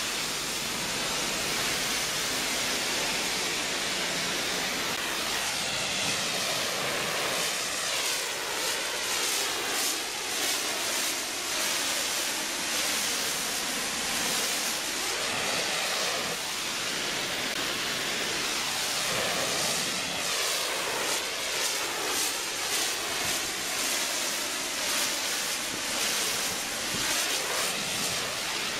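Pressure-washer spray hissing steadily against the aluminium side of a box trailer, its tone shifting as the wand sweeps along the panels.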